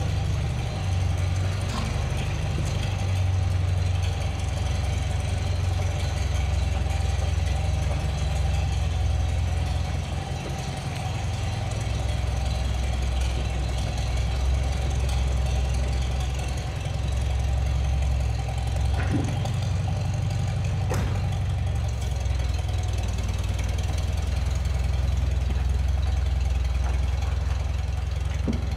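Farm tractor engine running steadily at low speed while it tows a car out of a barn, with a few light knocks near the end.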